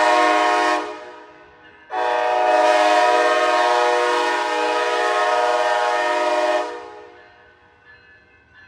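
Train horn blowing: a blast that cuts off just under a second in, then a long steady blast of about five seconds starting about two seconds in.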